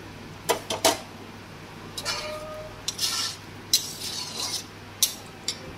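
Three sharp clinks as a metal bowl knocks against the rim of a metal kadai while fried prawns are tipped in. A spatula then stirs and scrapes through the thick curry in the pan in short, irregular strokes.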